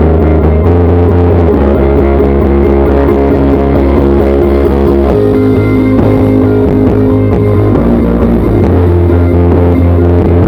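Rock band playing an instrumental passage live, with guitars, bass and drums and no singing; the bass line shifts between held low notes.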